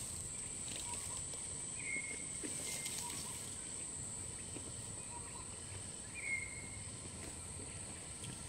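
Steady high-pitched drone of insects, with a few faint short chirps now and then.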